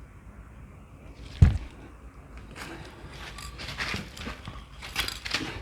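Handling noises: a single sharp knock about a second and a half in, the loudest sound, then a run of small clicks and scrapes as tools and objects are picked up and moved.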